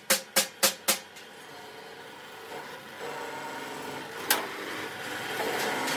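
Metal-cutting machine working a steel plate: four sharp metallic clanks in about a second, then a steady rasping machine noise with one more clank about four seconds in.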